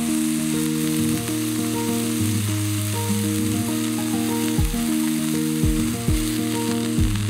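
Beef steak sizzling in a hot cast-iron skillet, a steady hiss, under background music with a bass line.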